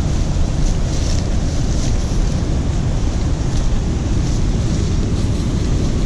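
Loud, steady rumbling rush of wind buffeting the camera microphone, with faint rustling of footsteps through leaf litter and undergrowth.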